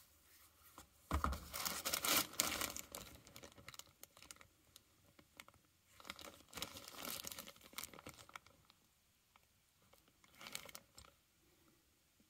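Cardboard boxes and plastic packaging being handled and opened, crinkling and tearing in three spells: the loudest about a second in, another around six to eight seconds, and a short one near eleven seconds.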